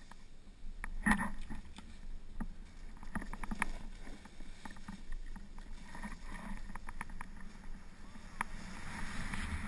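Snowboard sliding and carving through deep powder snow: a steady rushing hiss with scattered sharp clicks and knocks, the loudest about a second in, the rushing growing louder near the end.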